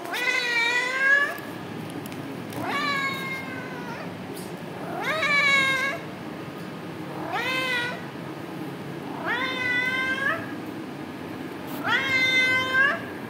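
Domestic cat meowing repeatedly: six long meows about two and a half seconds apart, each rising in pitch and then levelling off.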